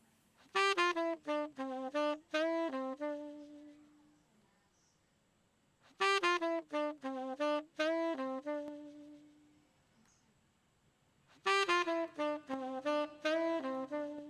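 A saxophone sample playing the same short melodic phrase of about seven notes three times, each time ending on a held note.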